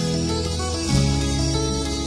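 Background music: the instrumental opening of a song, with held chords that change about a second in.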